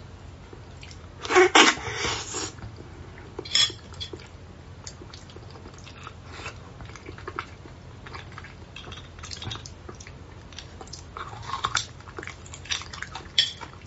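Slurping and sucking beef bone marrow out of a braised bone, with a loud slurp about a second and a half in, then a run of small wet mouth smacks and clicks.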